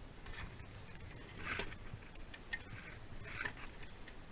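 Scattered short rustles and light clicks from hands and climbing gear handling bird netting against clay roof tiles, over a low wind rumble on the microphone.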